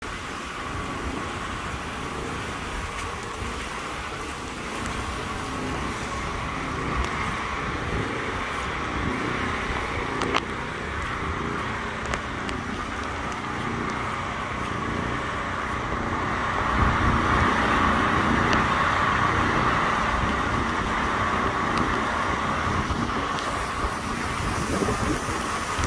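Hurricane wind rushing through trees in steady noise, swelling in a stronger gust about two-thirds of the way through, with low rumble of the wind buffeting the microphone.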